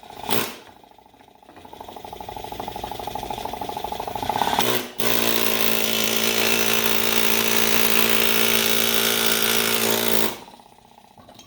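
Pneumatic air hammer driving a roll pin. After a knock at the start, it rattles in short, building spurts, then runs hard and steady for about five seconds before stopping; the pin is pushed partway up but does not come all the way out.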